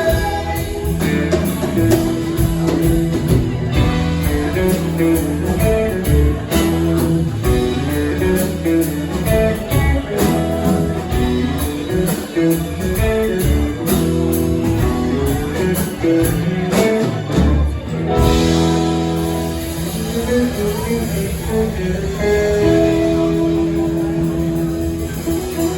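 Live rock band playing an instrumental passage: guitar lines over bass and drums, with no singing.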